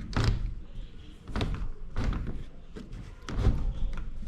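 A stuck door being shoved and worked open, giving several separate knocks and thuds; it does not open freely and needs work.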